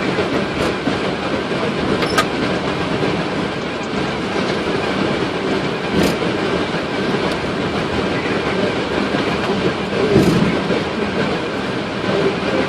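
Steady cockpit noise of a Boeing 777 rolling at low speed after landing: an even rumble and hiss of the airframe, air systems and wheels, with a few short clicks.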